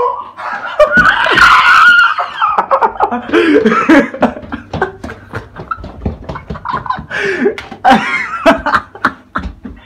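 People laughing hard in short, choppy bursts, loudest a second or two in.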